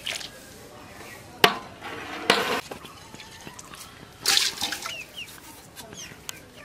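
Outdoor farmyard ambience: chickens clucking and small birds chirping. A sharp knock about a second and a half in, and two short scraping noises, one near the middle and one past it.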